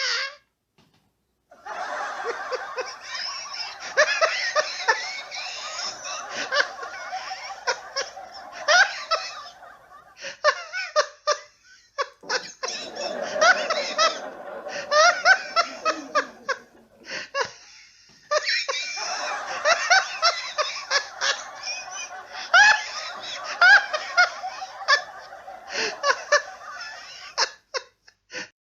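A live audience laughing together with a man's hearty laugh. The laughter comes in three waves with brief lulls between them, starting after a second-long pause and stopping near the end.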